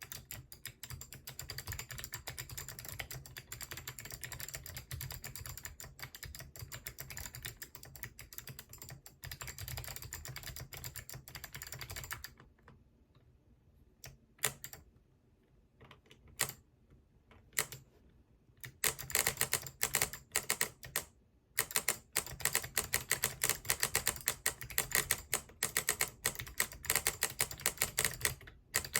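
Typing on a hand-wired QAZ mechanical keyboard with Arctic Fox switches: fast, dense keystroke clicks, then several seconds of only a few single presses, then fast typing again, somewhat louder.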